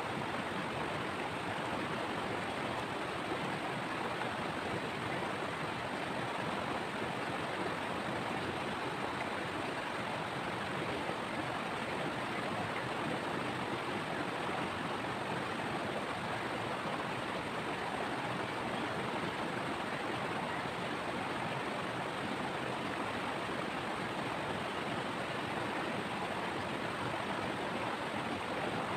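Shallow rocky river rushing steadily over stones and boulders.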